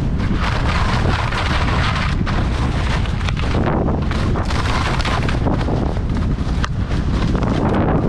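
Wind rumbling on a head- or mouth-mounted GoPro's microphone at skiing speed, with skis hissing and scraping over hard, wind-crusted snow. The scraping hiss swells and fades as the skier turns.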